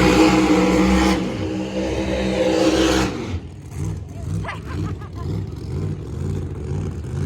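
Car engine held at high revs, then dropping back about three seconds in to a quieter idle with an even, rhythmic low pulse.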